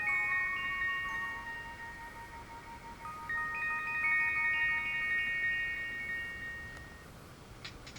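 Sony Ericsson Z200 mobile phone playing a chime-like ringtone: soft bell tones stepping upward and ringing on over one another, the phrase sounding twice. Near the end a different ringtone starts with quick, short notes.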